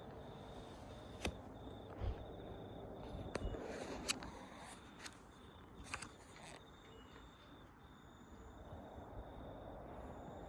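Faint outdoor ambience with a cricket chirping in a steady train of short, even pulses, and a few light clicks or taps scattered through the first half.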